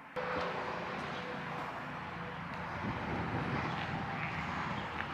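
Steady outdoor background noise with a faint steady hum, starting abruptly just after the beginning.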